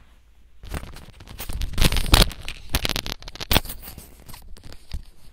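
Loud rustling and crackling of things being handled, starting under a second in, busiest around two seconds in and thinning out near the end.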